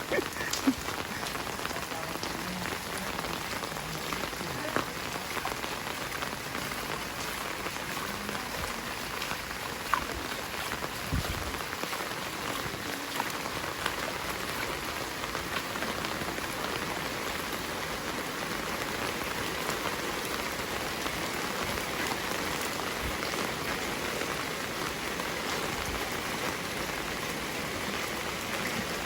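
Heavy rain falling steadily, with scattered louder drip and tap sounds of drops hitting nearby surfaces.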